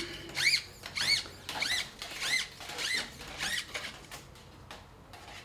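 Channel-cleaning brush being pulled back out of a veterinary gastroscope's working channel in short strokes, squeaking on each pull. The squeaks are short, rising then falling in pitch, a little under two a second, and stop about three and a half seconds in.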